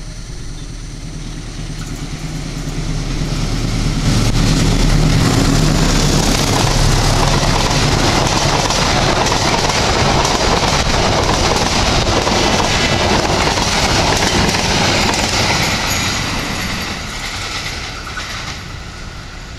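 Diesel-electric locomotive hauling a passenger train passes at speed. Its engine hum grows as it approaches and goes by about four seconds in, followed by a long steady rush of the coaches' wheels on the rails that fades near the end.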